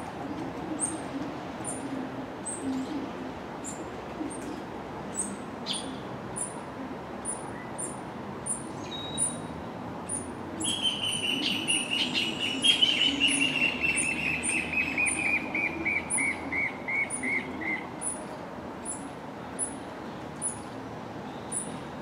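A bird sings a long trill of clear, rapidly repeated notes, starting about ten seconds in and sliding slowly down in pitch for some seven seconds. Throughout, a steady high ticking repeats about every two-thirds of a second.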